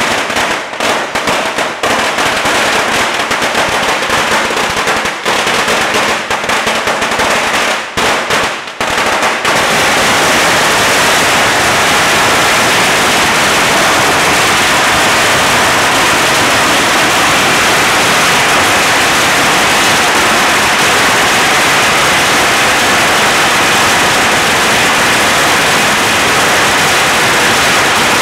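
Long strings of Chinese firecrackers going off in a rapid crackle of bangs. From about ten seconds in, several strings burn at once and the bangs run together into one unbroken wall of noise.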